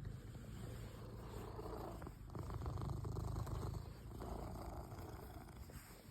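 Domestic cat purring steadily and close by, swelling and easing with each breath about every two seconds: a contented cat being given attention.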